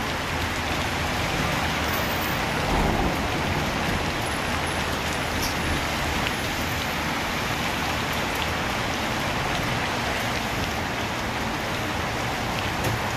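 Steady rain falling on a city street and pavement, with cars driving through the wet road beneath it.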